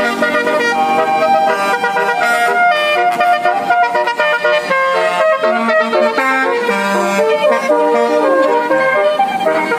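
Bus basuri musical horns playing a tune: several horn notes sound together and step from pitch to pitch, with a few sliding notes.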